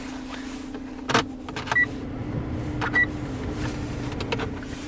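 Buttons on a car's dashboard air-conditioning controls clicking several times, two of the presses answered by a short high beep, over a steady low hum.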